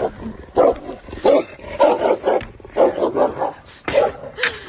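Dogs play-fighting, giving a run of short gruff barks and growls, about two a second.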